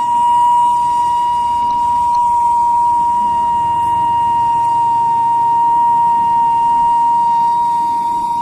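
Steam whistle on a kue putu vendor's bamboo-cake steamer cart, sounding one loud, steady, high whistle as steam escapes from the boiling steamer. This is the signature sound that announces a travelling kue putu seller.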